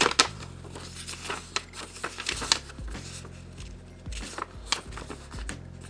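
Packaging and paper being handled: a string of rustles, clicks and taps as the contents of a graphics card box are sorted through, the sharpest about a quarter of a second in, over a faint steady hum.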